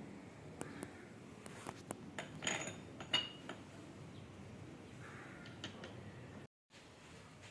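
Faint scattered clicks, with a few light metallic clinks about two and a half and three seconds in, as of metal tools or parts being handled.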